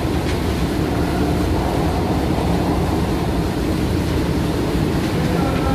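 Steady, even rumble of running machinery with no breaks or changes, and faint voices beneath it.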